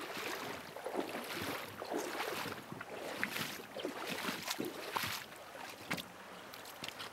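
Shallow river water running over stones, with irregular splashes and short sharp knocks scattered throughout.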